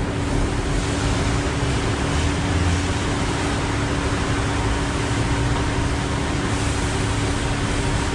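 Steady hum of truck-wash machinery, with a few held tones under a constant hiss.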